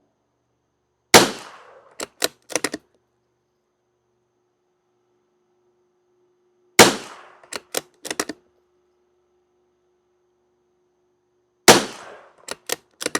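Three shots from a Savage Mark II FV .22 LR bolt-action rifle, about five seconds apart. Each shot is followed by three or four quick metallic clicks as the bolt is worked to chamber the next round.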